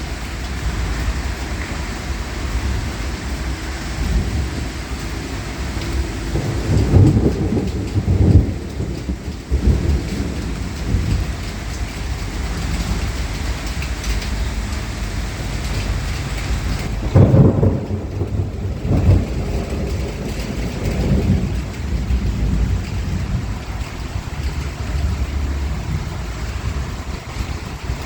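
Thunderstorm: steady heavy rain with strong wind and rolling thunder. The thunder rumbles loudest about seven seconds in and again around seventeen seconds, with a smaller roll a few seconds later.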